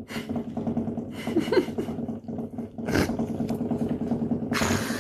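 Electric power tool motor running with a steady hum, broken several times by louder harsh bursts of noise.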